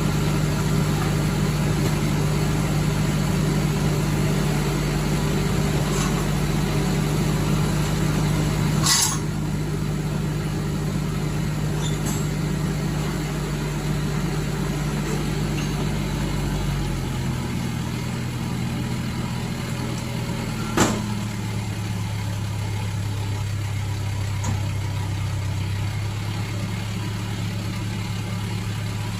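Crane lorry's engine running steadily; about seventeen seconds in its revs drop to a lower, even pitch. Two sharp clicks cut through, about nine seconds in and, louder, about twenty-one seconds in.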